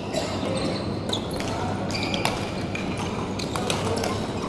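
Badminton rackets striking the shuttlecock several times in a doubles rally, with short sneaker squeaks on the court floor, echoing in a large sports hall.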